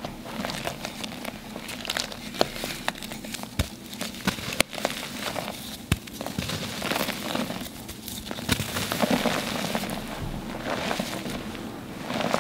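Hands crushing and squeezing damp, dyed gym chalk in water: dense, crumbly crackling, with a few sharp snaps as chunks of chalk break apart.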